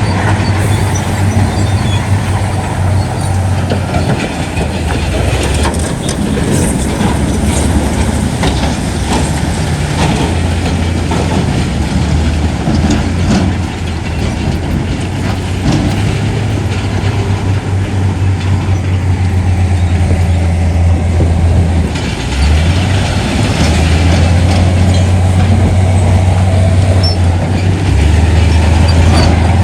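Heavy diesel earthmoving machinery running: a loud, low engine drone whose pitch shifts a few times, with occasional knocks and clanks.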